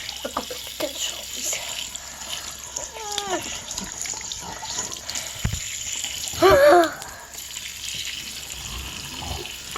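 Water running steadily, as from a tap or a washing machine filling. A short falling squeal comes about three seconds in, and a louder wavering cry, a voice or an animal, about six and a half seconds in.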